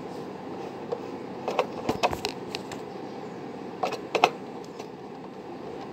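Light clicks and knocks of blender parts being handled and fitted back together as the base is reassembled. They come in two small clusters, about two seconds in and again around four seconds in, over a steady background hiss.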